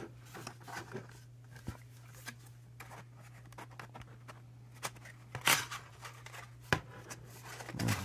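Plastic opening cards scraping and clicking against the plastic shell of an Amazon Fire HD 8 tablet as they are worked along its seam to pry the back off: scattered soft clicks, a short scrape about five and a half seconds in and a sharp click near seven seconds, over a steady low hum.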